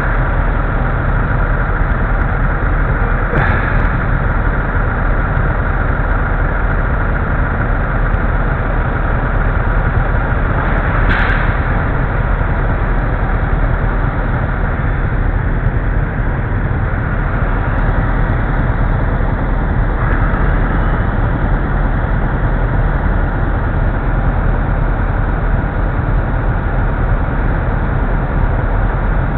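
A motorcycle engine idling amid the engines of stopped city traffic: a steady low drone. Two brief, sharper sounds stand out, about three and eleven seconds in.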